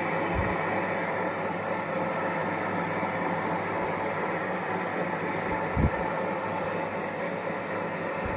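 Ultra Big 2.5 L table-top wet grinder running steadily, its motor and turning stone rollers making a constant hum. Two soft low thumps, about half a second in and just before six seconds.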